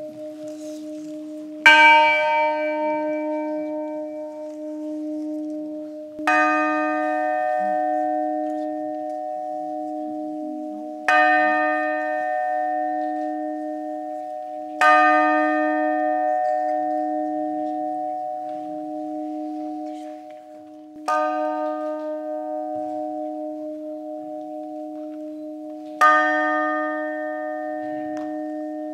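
New church bell tuned to D sharp, struck six times at irregular intervals of four to six seconds. Each strike rings on in a long, slowly wavering hum that never dies out before the next strike. The first strike is the loudest.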